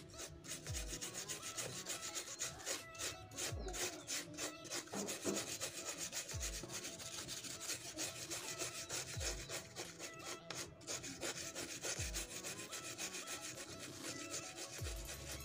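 Small brush scrubbing a laptop LCD panel's driver circuit board clean with thinner: quick, scratchy back-and-forth strokes with a few short pauses.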